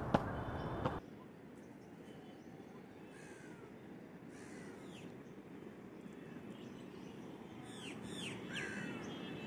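A couple of footsteps on stone steps in the first second, then faint outdoor ambience with birds calling: several short, falling calls, a cluster of them near the end.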